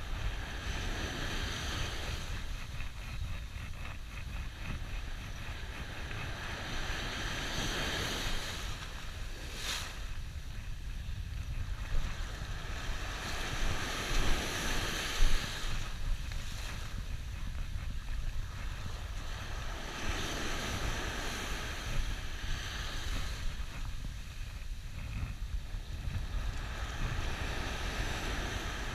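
Sea waves breaking and washing up the shore, swelling into a hiss every several seconds, over a steady rumble of wind on the microphone. A few sharp knocks come about halfway through.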